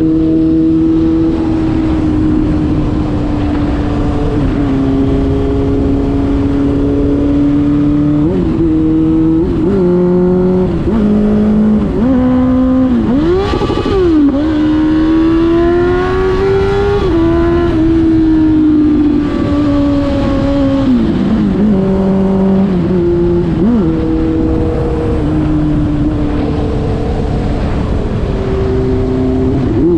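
Suzuki GSX-R1000 K5's inline-four running loud through an exhaust with the dB-killer removed, cruising at highway speed. Its note holds mostly steady but rises and drops quickly several times in the middle and again later as the throttle and gears change, with a sharp dip and rise a little before halfway.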